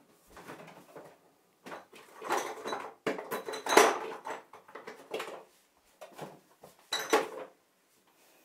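Kitchen clatter: a run of irregular knocks and rattles of dishes and utensils being handled, the loudest a little under four seconds in.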